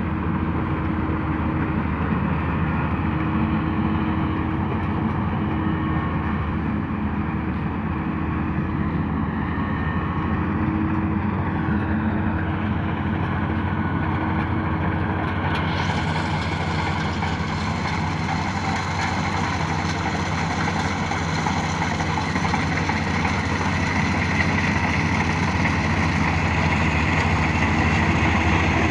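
Kubota DC-35 combine harvester's diesel engine running steadily under load while harvesting rice. About halfway through the sound turns brighter and hissier.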